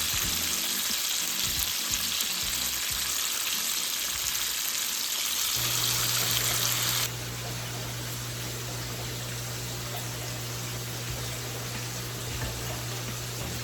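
Chicken frying in hot grease in a pot: a steady sizzling hiss that drops abruptly in level about seven seconds in, with a low hum under it.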